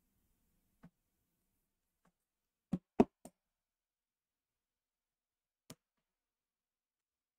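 A few short, sharp knocks of a trading card in a hard plastic holder being handled and set down on the table. There are three close together about three seconds in, the middle one the loudest, and single fainter ones before and after, with silence in between.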